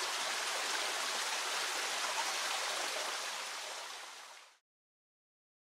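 Steady rushing outdoor ambience, an even hiss like running water, that fades out about four seconds in.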